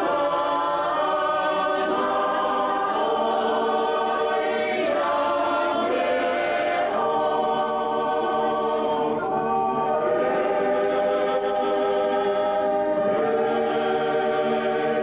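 A choir of mixed voices singing in harmony, holding long notes and moving between chords every second or two.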